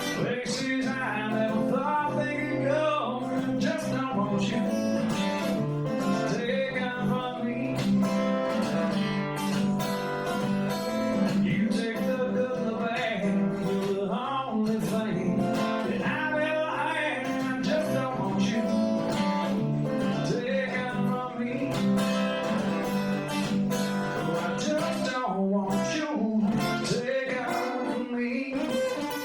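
Acoustic guitar played live: a steady, continuous passage with a moving melody line over changing bass notes.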